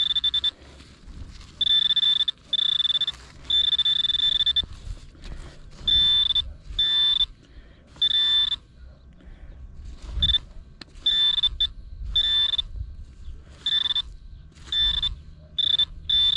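Metal detector's audio signal: a high beep sounding in repeated bursts of about half a second to a second as the search coil is swept back and forth over a buried metal target.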